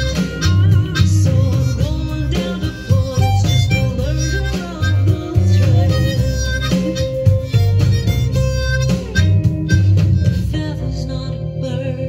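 Harmonica solo played with hands cupped around the harp against a vocal microphone: sustained and bending notes over a band accompaniment with guitar and a rhythmic bass line. The harmonica line thins out near the end.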